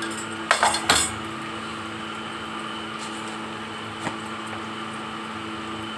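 A steady mechanical hum runs throughout. About half a second to a second in comes a brief clatter of steel dishes, and there is a faint click around four seconds.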